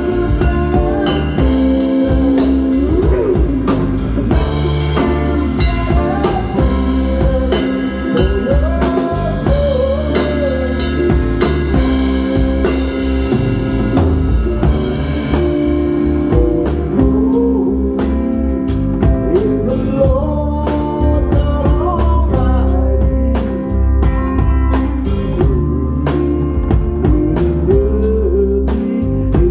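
A rock band playing live: drum kit, electric guitars and bass guitar in a bluesy groove, with a lead line sliding up and down in pitch. The cymbals drop back about halfway through.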